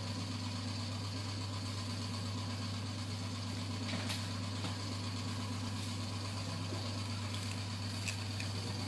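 Electric hair clipper running with a steady buzz, with a couple of faint clicks about four and eight seconds in.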